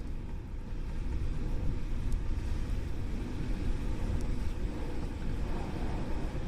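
Howling wind: a steady, low rumbling rush of wind that swells and eases slightly in loudness.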